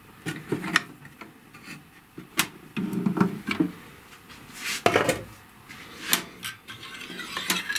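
Scattered clicks, light knocks and rubbing as a plastic cover is handled and lifted off the heating-element flange on top of a water-heater tank.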